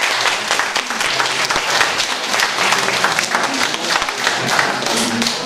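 Audience applauding: many hands clapping steadily, tailing off at the end.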